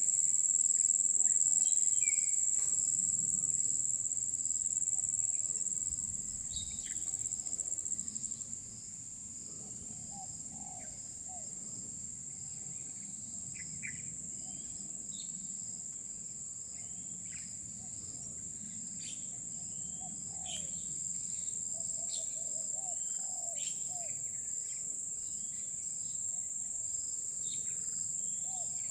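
Steady high-pitched drone of insects, with short bird calls scattered throughout.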